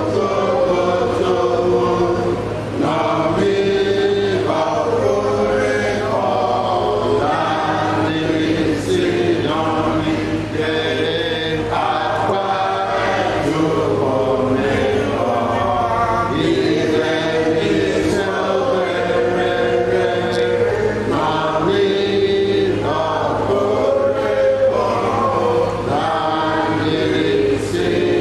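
Church congregation chanting together, many voices singing in long held phrases, over a steady low hum.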